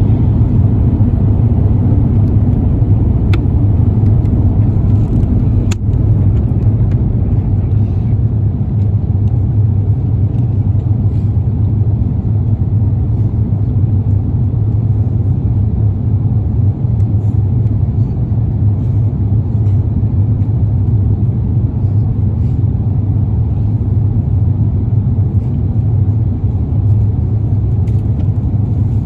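Steady, loud low rumble of an airliner cabin on descent: engine and airflow noise heard from a passenger seat. Two faint clicks come in the first six seconds.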